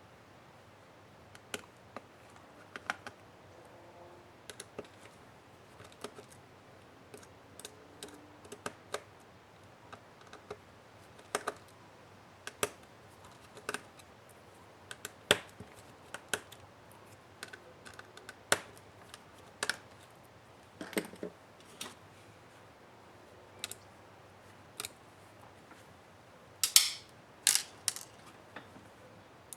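Irregular sharp clicks and taps of hand tools and small parts on a Lenovo Yoga C740 laptop's case during disassembly, with one duller knock midway and a quick cluster of louder clatter near the end.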